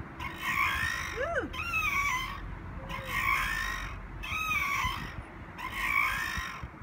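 Metal swing set squeaking rhythmically as the swings go back and forth, a rising-and-falling squeal about every second and a half.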